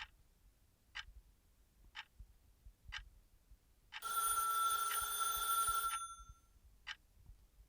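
A telephone rings once, a steady two-second ring about four seconds in. Faint short ticks sound about once a second before and after it.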